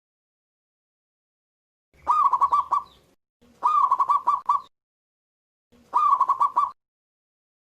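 Zebra dove (perkutut) singing: three short cooing phrases starting about two seconds in, roughly a second apart, each a rising opening note followed by a quick run of pulsed coos.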